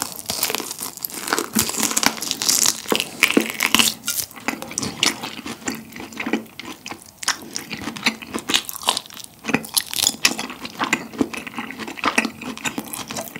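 Close-miked biting and chewing of crispy-edged grilled Iberico bellota pork French rack: a dense, irregular run of crisp crunches and crackles as the seared crust and fat are bitten and chewed.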